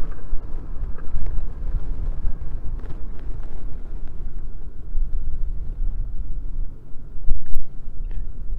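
Wind buffeting the microphone in uneven low gusts, over a GMC 1500 pickup truck driving slowly past.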